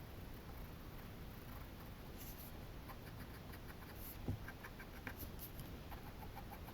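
Faint scratching of a pencil on paper as short drawing strokes, starting about two seconds in, with one soft knock about halfway through.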